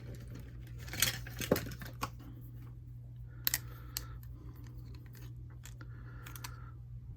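Hard plastic toy-jet parts being handled, giving a scattered handful of light clicks and rattles over a steady low hum.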